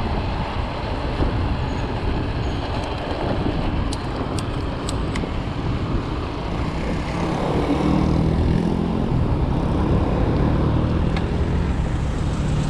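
Steady road-traffic noise, with a motor vehicle's engine hum coming up about seven seconds in and holding to the end.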